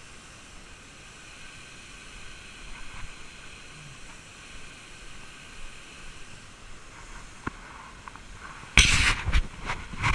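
Steady faint rush of a shallow creek and small waterfall. Near the end it is broken by sudden loud, rough bursts of noise on the microphone as the camera is jostled.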